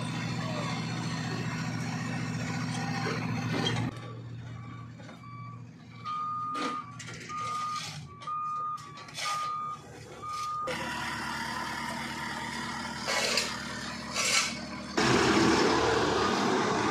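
Road-repair machinery: a JCB skid-steer loader's diesel engine runs with its asphalt-milling attachment for the first few seconds. Then a vehicle's reversing alarm beeps about six times at an even pace, and heavy engine noise returns, louder near the end.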